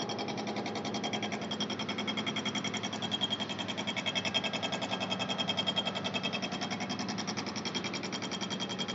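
Gantry milling machine cutting metal: a rapid, even pulsing from the cutter teeth over a constant low hum.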